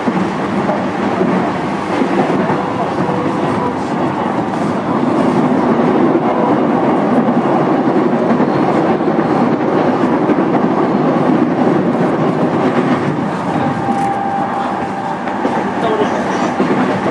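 Steady running noise heard from inside a JR East E233-3000 series electric multiple unit's motor car (MoHa E233-3404): wheels on rail and running gear rumbling with the train under way.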